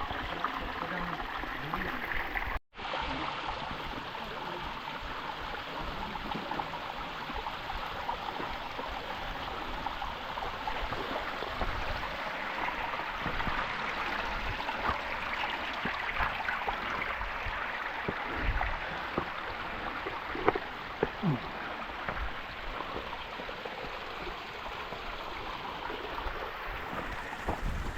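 Steady rushing noise like running water, broken by a brief dropout a few seconds in.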